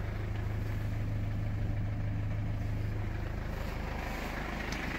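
Mercedes-Benz Sprinter 314's four-cylinder diesel engine idling, a steady low hum that eases off slightly about three and a half seconds in.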